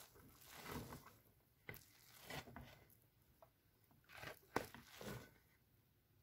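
Faint soft scrapes and rustles of drained boiled rice being moved from a mesh strainer back into the cooking pot, with a sharper light knock about four and a half seconds in.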